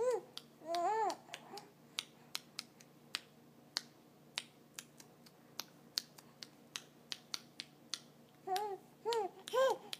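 Sharp clicks at an uneven beat, roughly one to two a second, kept as a beat while a baby is bounced in a dance. Short high-pitched vocal sounds that rise and fall come about a second in and again several times in the last second and a half.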